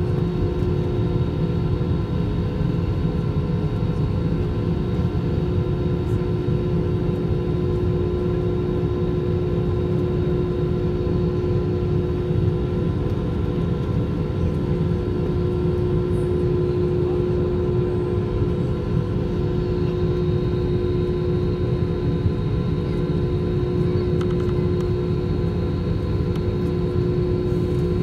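Airbus A320 cabin noise heard from a seat over the wing while taxiing: the jet engines run at idle with a steady whine over an even low rumble.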